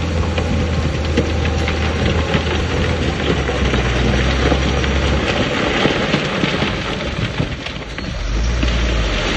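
Heavy diesel earthmoving machine running under load, its engine note dropping about halfway through and rising again near the end, over a dense crackling clatter.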